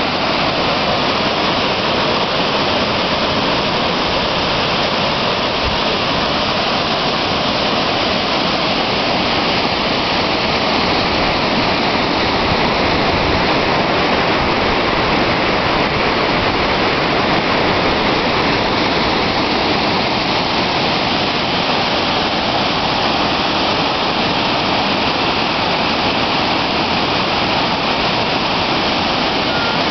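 Waterfalls spilling over a rock ledge into a lake: a steady, unbroken rush of falling water.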